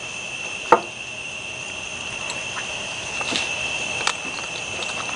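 A steady, high-pitched insect trill, like crickets, runs throughout. Over it come a few light clicks and a short scrape of a fork and knife against a plate as fish is cut, the most distinct about a second in.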